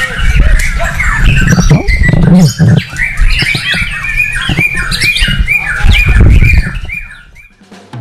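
White-rumped shama (murai batu) singing in a contest: a fast, continuous run of varied chirps and whistles, with repeated short arched notes several times a second, over a steady low rumble. It fades away near the end.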